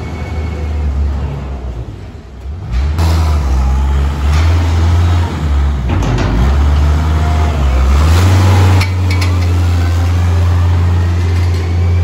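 Weidemann compact loader's diesel engine running as the machine drives along a barn feed alley, louder from about three seconds in, with a faint whine rising in pitch over the last few seconds.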